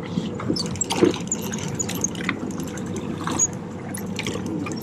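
Water sloshing and lapping against a boat's hull, a steady wash broken by many small clicks and knocks.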